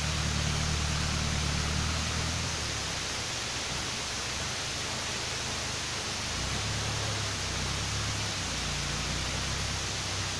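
Ford 5000 tractor engine droning at a distance under a steady hiss. Its hum fades about three seconds in and comes back around six seconds in.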